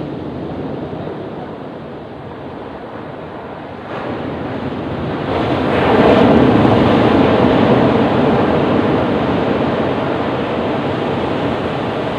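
Ocean surf rumbling on a beach. A wave builds from about four seconds in, breaks loudest around six seconds, then washes out slowly.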